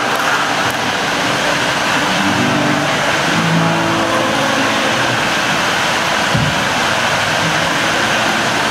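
Acoustic guitar played through a stage PA, its notes coming and going under a loud, steady rushing noise.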